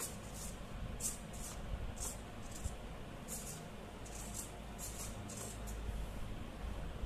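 Two small hobby micro servos whirring in short, high buzzes, about a dozen at irregular intervals, as the transmitter sticks drive them back and forth.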